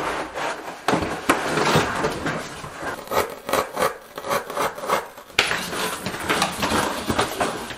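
Schluter Ditra plastic waffle underlayment being unrolled, flexed and cut with a utility knife: a run of irregular crackling, rubbing and scraping strokes.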